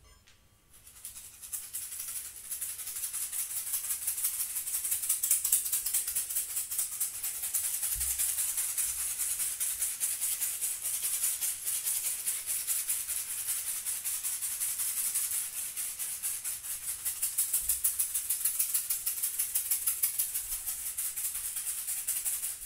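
A hand shaker shaken in a fast, continuous rattle, building up about a second in, easing a little about two-thirds through, then stopping abruptly.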